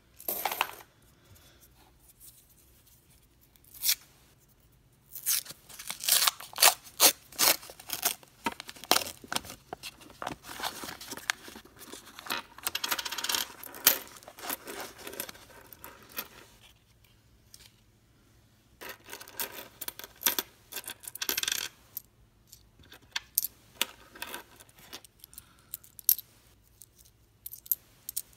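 Lincoln cents clinking against each other in irregular flurries as a paper coin roll is torn open, the pennies are poured out onto the table and handled one by one. The paper wrapper rustles and tears in the middle of the stretch.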